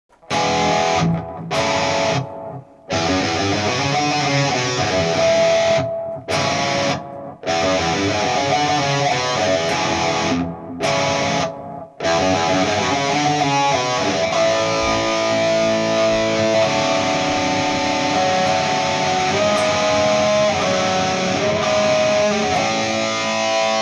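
Electric guitar music: a riff broken by several short, sudden stops in the first half, then playing on without a break.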